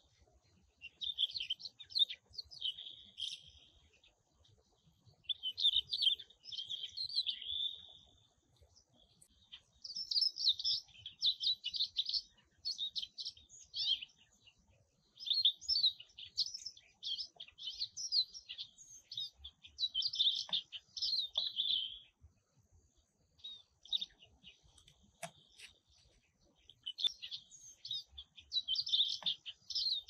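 A songbird singing high-pitched, chattering, twittery phrases of a few seconds each, about six of them, with short pauses between.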